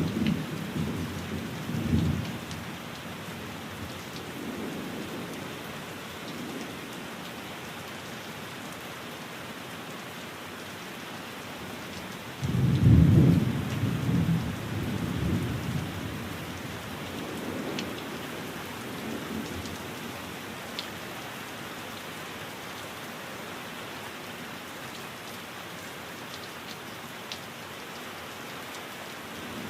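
Steady rain with rolling thunder: a rumble fading away at the start, and a louder peal rolling in about halfway through and dying away over a few seconds.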